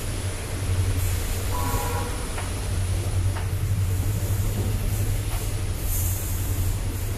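Steady low rumble and hiss of an Indian Railways general second-class coach on the move, with a few faint clicks.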